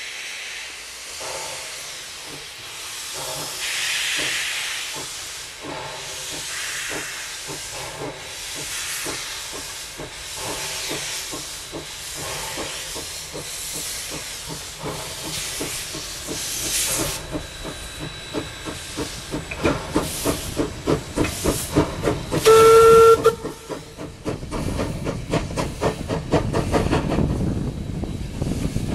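Queensland Railways C17-class steam locomotive No. 720 pulling away with its train: the exhaust chuffs start about one a second and quicken steadily to several a second, over the hiss of steam from open cylinder drain cocks. About two-thirds of the way through it gives one short whistle blast, the loudest sound, and the chuffs then grow heavier and deeper as it draws near.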